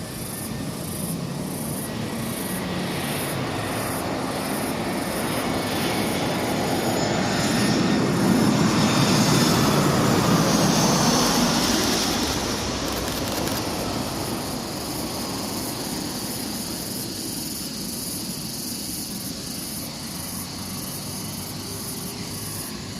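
AirAsia jet airliner's engines, passing close by: a rumble and hiss that swell to a peak about nine to twelve seconds in and then slowly fade.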